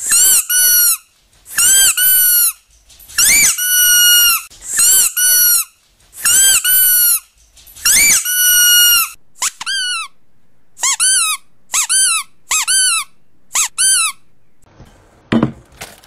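High-pitched squeaky-toy squeaks, mostly in quick pairs. For the first several seconds each squeak is long and drops a little in pitch before holding steady; after that they come shorter and quicker. A brief rustle near the end.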